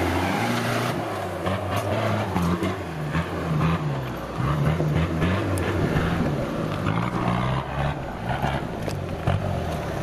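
Off-road 4x4 vehicle's engine revving up and down over and over as it works hard, with scattered knocks through it.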